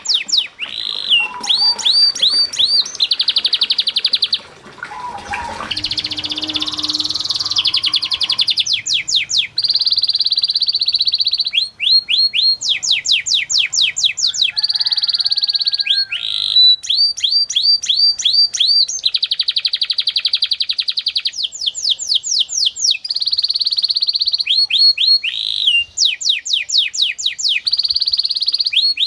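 Domestic canary singing continuously. Its high-pitched song switches between runs of quickly repeated sweeping notes and rolls so fast they sound almost like one held note.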